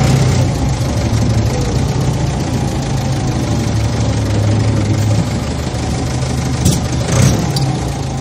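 Heavy farm-machine engine running steadily with a low, even drone. Two brief rattles come about seven seconds in.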